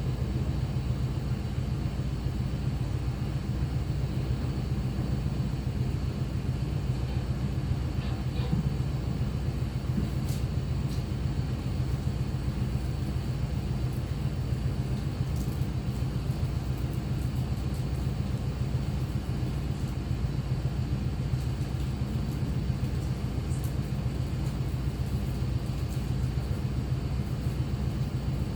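Steady low hum of operating-room machinery, with a few faint clicks from the middle onward.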